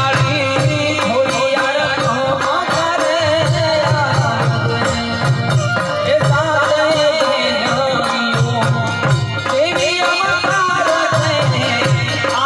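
Gujarati garba song: a voice singing over sustained harmonium tones and hand drums beating a steady, even rhythm.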